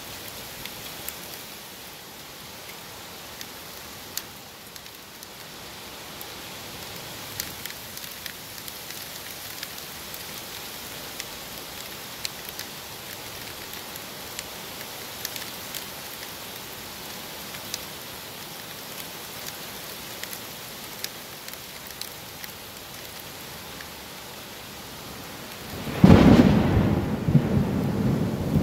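Thunderstorm: steady rain hiss with scattered drop ticks, then near the end a sudden loud clap of thunder that rumbles on.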